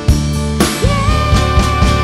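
Live rock band playing: a woman sings over electric guitar, bass and a drum kit, her voice rising into one long held note about a second in.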